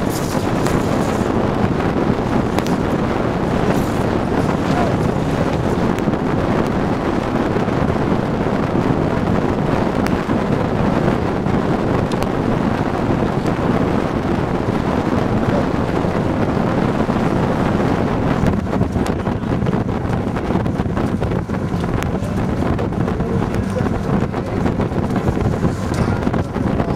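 Wind buffeting the microphone on the deck of a sailing barge: a steady, loud rushing noise, with a few faint knocks in the first seconds while the canvas sail is lowered.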